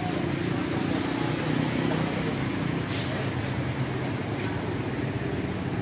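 Motorbike engines running as motorbikes and a motorised cart ride past through shallow floodwater, with one sharp click about three seconds in.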